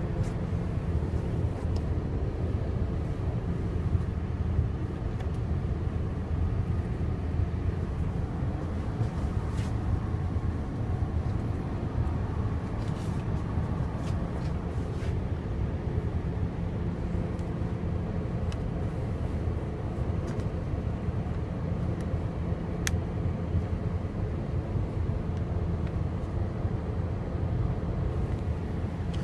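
Kia Parkway coach's 410 hp diesel engine idling steadily with the air-conditioning blower running, heard from inside the passenger cabin.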